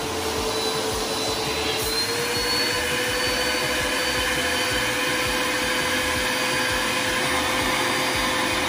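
Vacuum cleaner running steadily with its hose on the valve of a vacuum storage bag, sucking the air out of the clothes-filled bag. Its motor hum steps up slightly in pitch about two seconds in.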